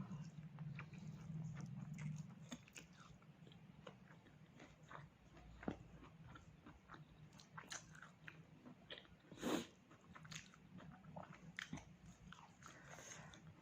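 A person chewing pork close to the microphone: soft, irregular wet mouth clicks and smacks, with one louder smack a little past the middle.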